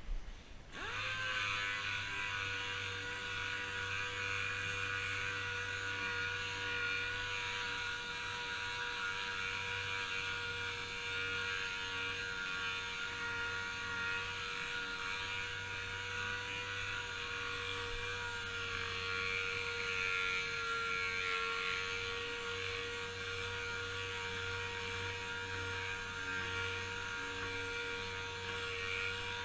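Pneumatic random orbital sander spinning up under a second in, then running steadily with a whine and a hiss of exhaust air as its pad sands a primed car fender.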